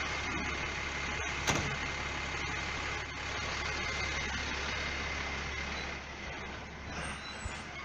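Steady hum of a motor vehicle engine running, with a faint steady high whine and a single click about a second and a half in.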